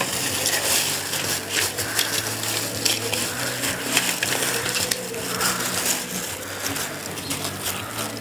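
Small die-cast toy cars clicking and clinking against each other, with plastic bag rustling, as a handful of cars is shaken out and handled. A steady low hum runs underneath.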